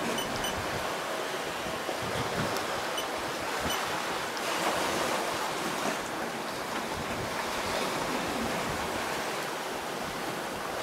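Steady rush of wind and sea around a sailing yacht under way.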